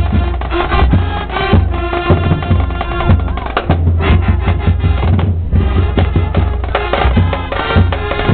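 Loud music with heavy drums and a steady deep bass line.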